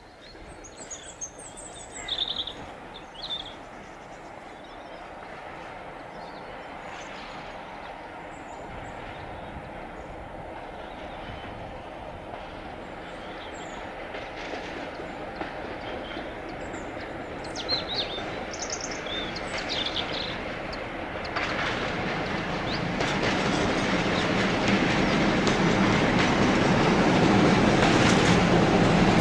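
Class 47 diesel locomotive approaching at the head of a passenger train, its engine and wheels on the rails growing steadily louder as it nears. Birds chirp a few times in the first seconds and again about two-thirds of the way in.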